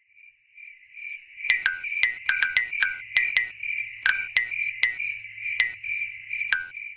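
Crickets-chirping sound effect: a steady, pulsing high trill broken by a dozen or so sharp clicks.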